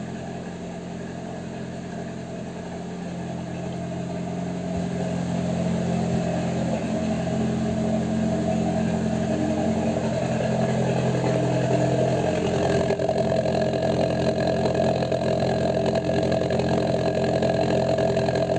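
Toyota Kijang LGX engine idling through a Suos exhaust with a deep, wet burble, without any throttle. It grows louder over the first ten seconds or so, then holds steady.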